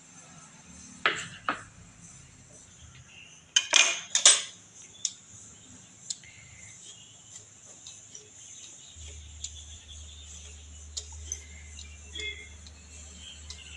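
Kitchen knife knocking on a wooden cutting board as it trims the stem end off a bottle gourd, with a few sharp knocks about a second in and a louder cluster near four seconds. After that come light scrapes and ticks of a hand peeler taking the skin off the gourd.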